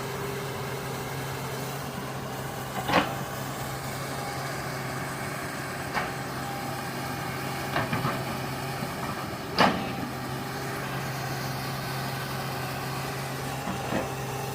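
Excavator's diesel engine running steadily, with about five sharp metallic clanks over its hum.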